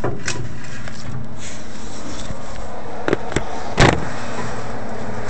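A few short knocks and bumps as the camera is handled and moved, the loudest just before four seconds in, over a steady background hiss.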